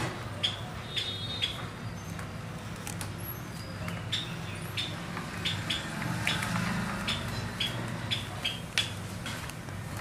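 Cockatiels giving short, high chirps and clicks, scattered irregularly, over a steady low hum.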